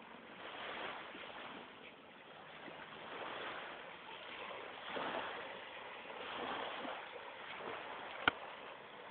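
Small waves lapping on a shingle beach, the wash swelling and falling every second or two, with one sharp click near the end.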